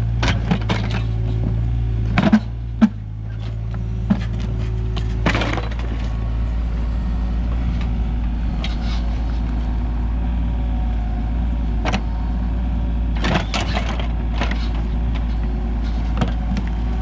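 Kato 35 mini excavator's engine running steadily while it digs out big rocks, with sharp knocks of the bucket against rock, the two loudest about two and a half seconds in and a few more later on.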